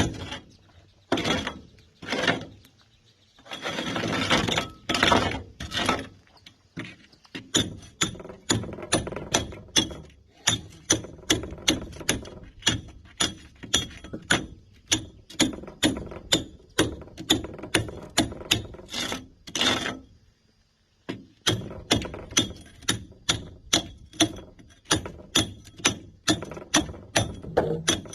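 Hand hammer striking a steel chisel to break concrete: steady, regular blows at about two to three a second, each with a short metallic ring. There is a longer, noisier stretch about four seconds in and a brief pause near twenty seconds.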